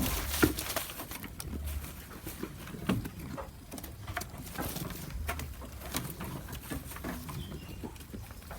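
A goat chewing crunchy food: irregular crunches and snaps, with a louder crunch about half a second in and another around three seconds in.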